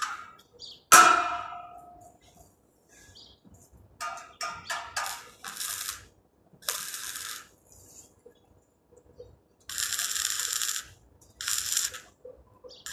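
Electric arc welding on a steel tube railing frame: a run of short crackling, sizzling welds, each about a second or less. About a second in, a sharp metallic clang rings out, the loudest sound.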